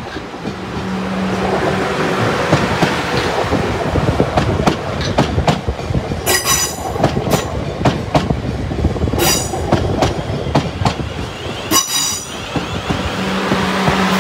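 A Class 444 Desiro electric multiple unit passing close by on the rails. Its wheels keep up a steady rumble with many quick clicks over the rail joints. There are three brief high ringing sounds about six, nine and twelve seconds in, and a low steady hum near the start and again near the end as the cab cars go by.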